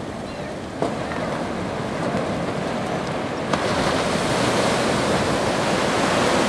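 Ocean surf breaking and washing up the beach, a steady rush of noise that grows louder about a second in and again past halfway, each time with a brief click.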